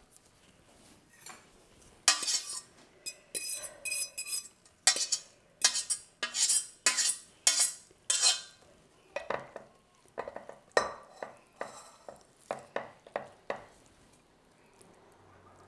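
A metal spoon scraping and knocking against the inside of a stainless-steel saucepan as the sauce is scooped out. It makes a quick run of sharp metallic scrapes and clinks with a slight ring, and the strokes die away near the end.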